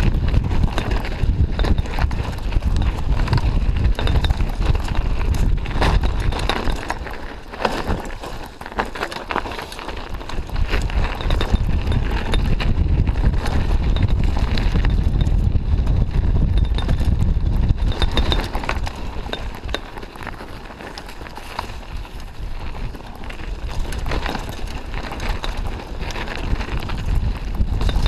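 Mountain bike riding fast down a dirt trail: a heavy rumble of wind on the microphone, with rattling and knocking from the bike as it goes over bumps. It eases off briefly twice, about eight seconds in and again about twenty seconds in.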